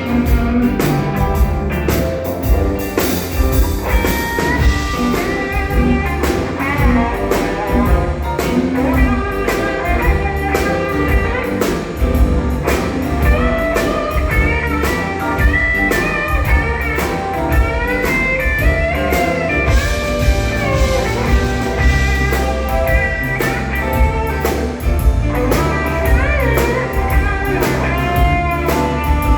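A band playing blues-rock, with lead guitar bending notes over a steady drum beat.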